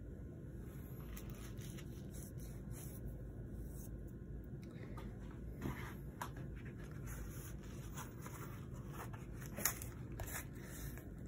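Faint unpacking noises over a steady low hum: scattered rustles and light clicks of packaging and plastic coin slabs being handled, with a sharper click about halfway through and a louder one near the end.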